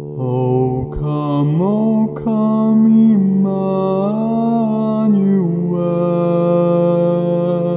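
Two layered tracks of a male bass voice: one holds a steady low subharmonic drone on D2, while the other sings a wordless line above it that glides up to held notes, dips and rises again, then settles on a long held note.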